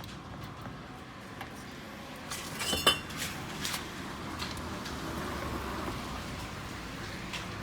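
Metal clinks and taps from hand tools and parts: a quick cluster about two and a half seconds in, peaking in one ringing clink, then scattered lighter taps.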